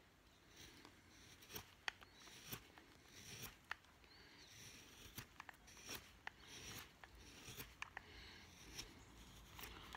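Carving knife paring thin shavings from a wooden spoon handle, cutting the bevel that runs down the handle into the neck: faint, short slicing strokes, irregular, about two a second.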